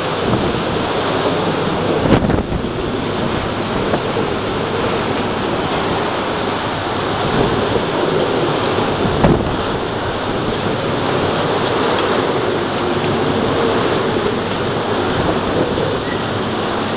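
Typhoon wind and rain: a loud, steady storm noise that swells and eases with the gusts, with a sharp knock about two seconds in and another about nine seconds in.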